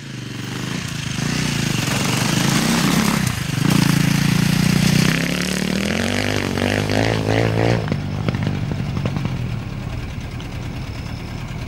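Motocross bike engine accelerating away, its pitch climbing, dropping back and climbing again as it shifts up, then growing somewhat fainter near the end.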